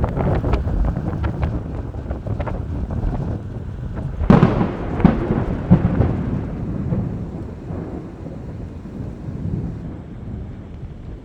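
Thunder: a sharp crack at the start rolling into a low rumble, then a louder crack about four seconds in that rumbles on for a few seconds and slowly fades.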